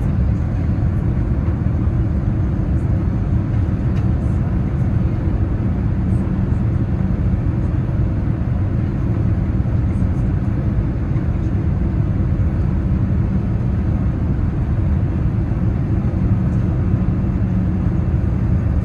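Steady cabin noise of a Boeing 787-9 in flight, heard from a seat inside the cabin: an even low rumble of airflow and engines with no change in pitch or level.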